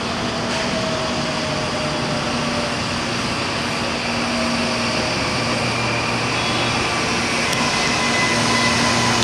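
CPTM electric multiple-unit commuter train running past on the line: wheel-on-rail rumble with steady whining tones from its electric traction gear. It grows gradually louder as the train draws near, and higher whines come in over the last few seconds.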